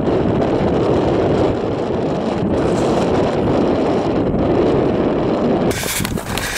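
Wind buffeting the microphone, a steady low rush. Near the end it cuts abruptly to a brighter rustling with scattered knocks.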